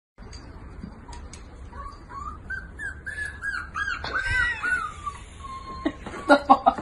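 Dachshund puppy whining in a run of short, high, arching squeaks, about three a second.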